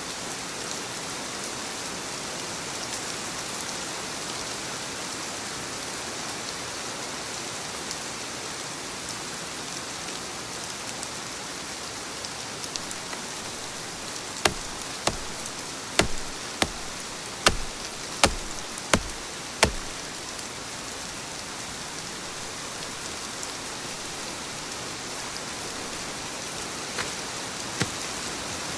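Steady rain falling. About halfway through comes a quick run of roughly eight sharp knocks over some five seconds, a couple more near the end.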